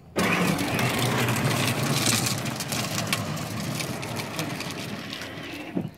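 Stroller wheels rolling over an asphalt path: a steady noisy rumble with fine gritty crackles, starting abruptly and slowly easing off near the end.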